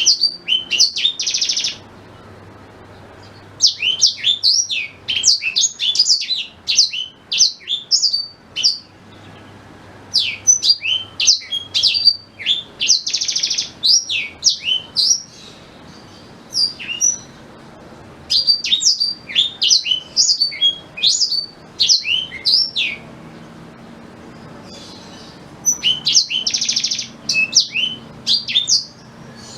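Black-throated canary (blackthroat) singing: phrases of fast, high chirps and short buzzy trills, broken by pauses of a second or two, over a faint low hum.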